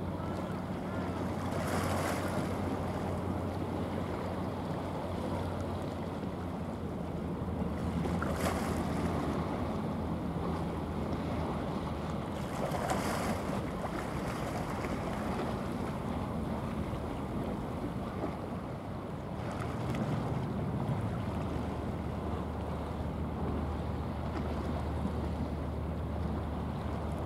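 Low steady drone of a passing bulk carrier's engine over rushing water from her bow wave and wind on the microphone, with a few brief louder swooshes.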